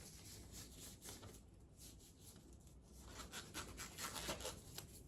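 Faint rustling, scratching and rubbing of hands handling gloves and packaged supplies, a quick run of short scrapes that grows busier and louder about three seconds in.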